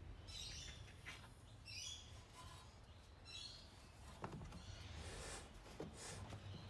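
Quiet handling sounds of a new rear air suspension spring being worked up into its seat by hand: faint rubbing and a few light knocks. There are also three short, faint high chirps about a second and a half apart in the first half.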